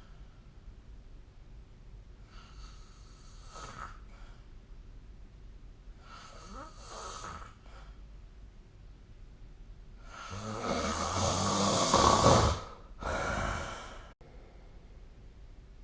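A person snoring in their sleep: two softer snores a few seconds apart, then a much louder, longer snore about ten seconds in, with a short one right after it.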